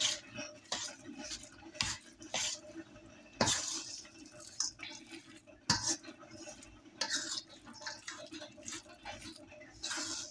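A metal fork scraping and clinking against a stainless steel mixing bowl in irregular strokes, mixing a thick ricotta cheese filling.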